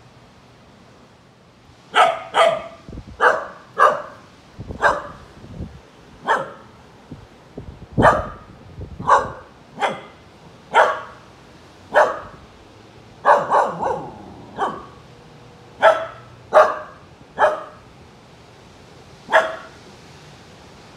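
Siberian husky puppy barking: about twenty short, sharp barks, roughly one a second with a few quick doubles, starting about two seconds in.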